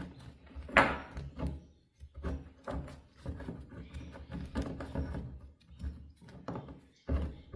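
Irregular small knocks, clicks and rubbing from hands handling the bathtub faucet parts while greasing the threads, with a sharp knock about a second in.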